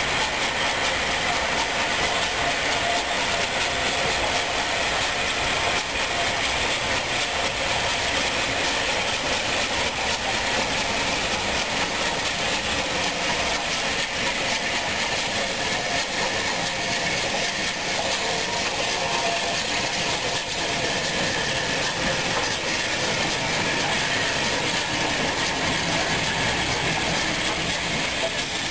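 Southern Railway Bulleid light Pacific steam locomotive 34007 running slowly past, with a steady hiss of steam from its open cylinder drain cocks as the train rolls by.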